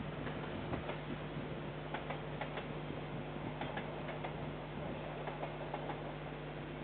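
Container wagons of a freight train rolling past, their wheels clicking irregularly over the rail joints, over a steady low hum. Heard through a security camera's microphone.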